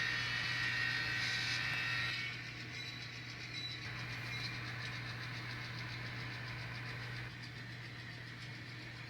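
N scale model diesel locomotive's onboard sound running a diesel engine sound through its small speaker, with a steady low hum. It is louder, with added high tones, for about the first two seconds, then settles a little quieter.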